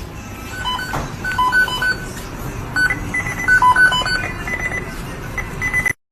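A string of short electronic beeps at several different pitches, in an irregular run over a steady noisy background, cutting off suddenly near the end.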